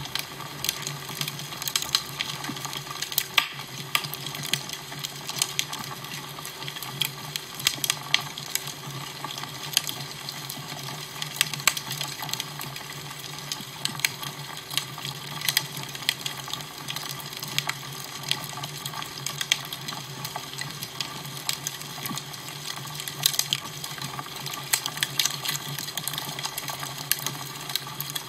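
Crackling fire: a steady hiss with frequent, irregular sharp crackles and pops over a low, steady hum.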